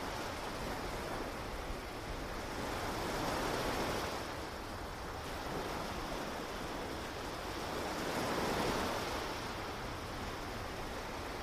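Ocean surf washing onto a beach: a steady rush of waves that swells about three seconds in and again about eight seconds in.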